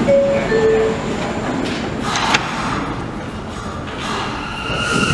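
New York City subway car's two-note descending door chime, followed about two seconds in by the doors sliding shut with a thud. Near the end a steady motor whine begins as the train starts to pull out.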